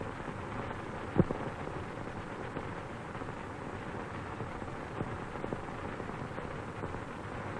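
Steady hiss with scattered crackles and pops, the strongest about a second in: the surface noise of an old optical film soundtrack.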